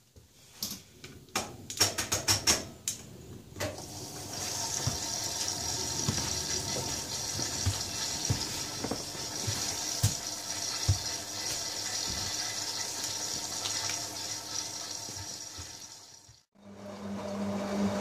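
Clicks as the programme dial and buttons of an Electra 17054E (re-branded Hotpoint) washing machine are set, then a steady hiss of water running in through the inlet valve as the machine fills at the start of a wash cycle. Near the end, after a brief break, a low hum starts.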